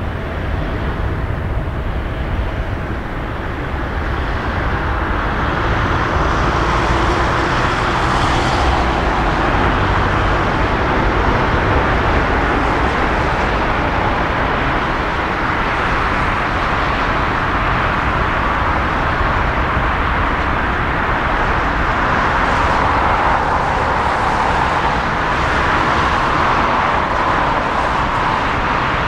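Jet engines of an Airbus A320neo-family airliner running during its landing rollout just after touchdown: a loud, steady rushing noise that swells a few seconds in and then holds.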